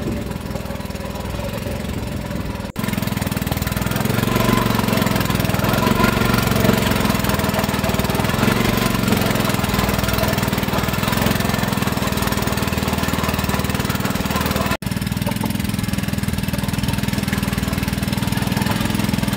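Small air-cooled petrol engine of a wooden fishing boat running steadily while the boat is under way, with a wash of wind and water. The sound steps up and drops out for an instant about three seconds in and again about fifteen seconds in.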